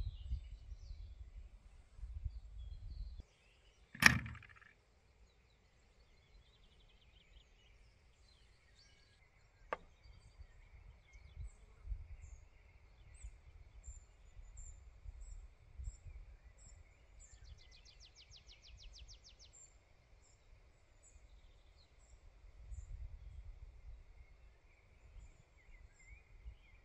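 Outdoor ambience: gusts of wind rumbling on the microphone and small birds chirping, with one sharp knock about four seconds in and a lighter click a few seconds later.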